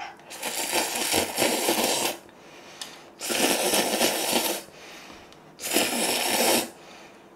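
A person slurping instant ramen noodles three times, each slurp about one to two seconds long.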